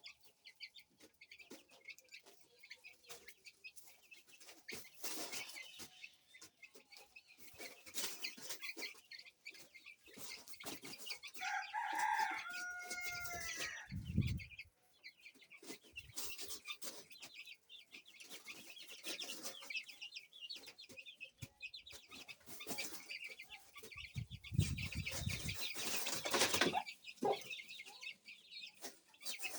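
Chickens clucking and calling, with a longer pitched call about twelve seconds in, and low rumbles just after it and again near the end.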